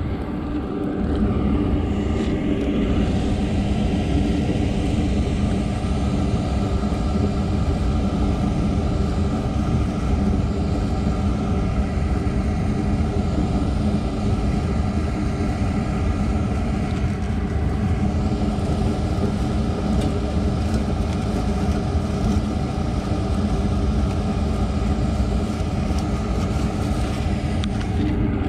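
A steady, loud rumble with a constant low hum underneath, swelling about a second in and holding without change.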